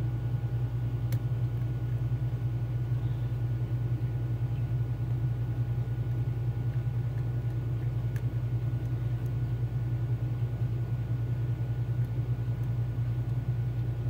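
Steady low hum throughout, with faint metallic ticks about a second in and about eight seconds in from picks working inside a Mul-T-Lock Junior lock cylinder.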